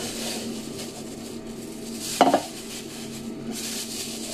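Coffee grounds being scraped and stirred with a utensil as they are moved into a jar, a soft steady rasping, with a sharp double clack of dishware about two seconds in.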